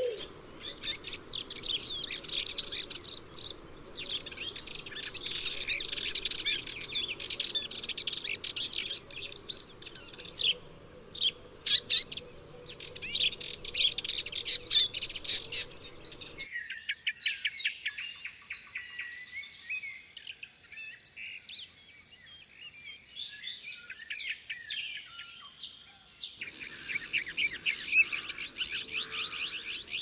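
Songbirds singing in a busy chorus of quick, high chirps and trills. It is made of separate recordings joined together: the background changes abruptly a little past halfway and again near the end.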